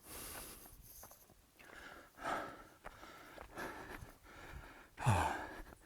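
A hiker breathing hard while climbing, a few loud breaths about a second and a half apart, the last one voiced and falling in pitch near the end.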